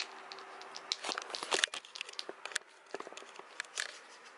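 A kitten scrabbling at and biting a woven toy mouse on a string on a wooden floor: a run of irregular crinkly clicks and scratches, busiest between about one and two seconds in, with a few more near the end.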